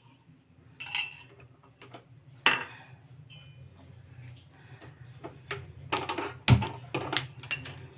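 Scattered clinks and knocks of steel kitchen utensils at a gas stove, with a cluster of knocks about six to seven seconds in, over a steady low hum.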